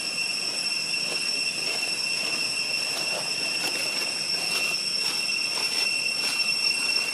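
Steady high-pitched insect drone, like a cicada chorus, holding one unbroken whine with several overtones, with faint scattered ticks in the second half.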